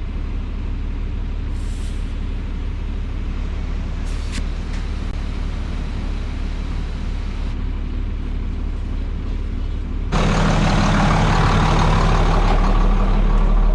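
John Deere 4440 tractor's six-cylinder diesel engine running steadily as the tractor drives along the road. About ten seconds in, the sound abruptly becomes louder and harsher.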